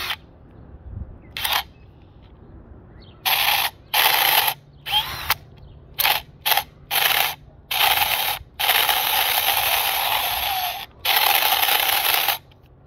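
A Craftsman cordless hammer drill run in a series of trigger pulls, about ten short and long bursts with the longest about two seconds. Its drive gears are broken.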